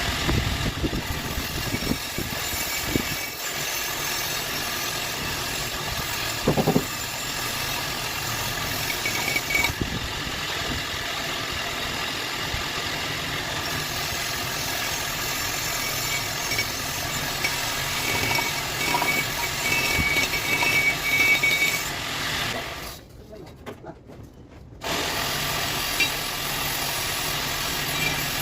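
Angle grinder fitted with a wire brush, spinning against steel to scrub a weld clean: a steady, dense whir and scratching hiss. It stops for about two seconds near the end, then starts again.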